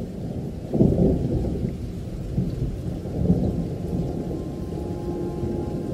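Thunderstorm: a low rolling rumble of thunder over rain, swelling loudest about a second in and again around three seconds in.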